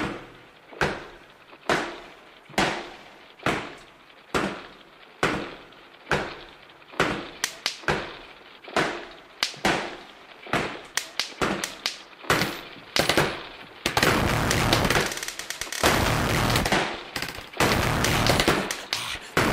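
Recorded gunshots on the soundtrack: single sharp shots, each with a fading echo, about once a second. They come faster after about seven seconds and turn into a dense stretch of rapid fire for the last few seconds.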